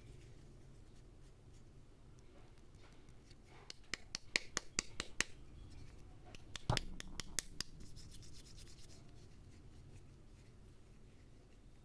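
Soap unboxing by hand: packaging and soap bars rubbing and scraping, with a quick run of sharp clicks and taps about four seconds in, then a single dull knock a little past halfway, followed by a few more clicks.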